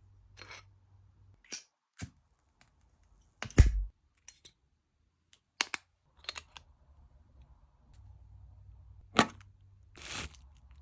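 Scattered clicks and knocks of small hard objects being handled while unboxing a self-defence knife kit. The sharpest knock comes about three and a half seconds in, another about nine seconds in, and there is a short rustle of packaging near the end.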